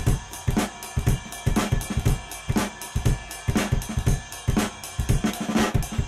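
Intro music with a drum kit playing a steady beat.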